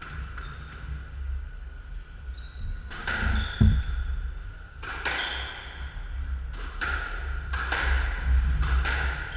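Squash rally: the ball cracks off rackets and slaps the walls of the enclosed court, each hit ringing briefly. Rubber-soled shoes squeak on the wooden floor. The hits start about three seconds in and come every half second to second and a half.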